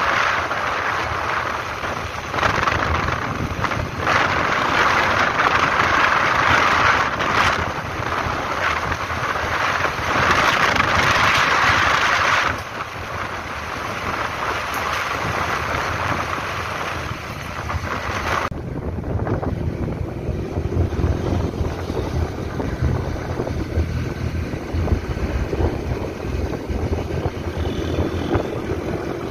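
Wind rushing over the microphone of a motorcycle riding at speed on an open highway, with the bike's engine and road noise underneath. About 18 seconds in, the hiss drops away abruptly and a lower engine and road rumble takes over.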